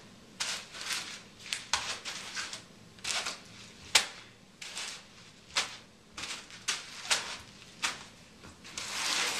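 Plastic bags of airsoft BBs and packaging being handled by hand: unevenly spaced crinkles and sharp clicks, with a denser rustle near the end.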